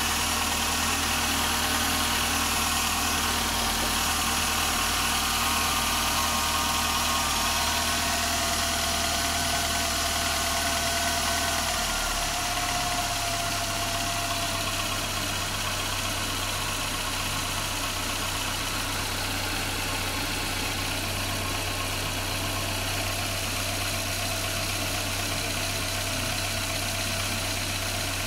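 Dacia's Renault petrol engine idling steadily with the bonnet open, on its first start. About twelve seconds in the idle shifts slightly and gets a little quieter.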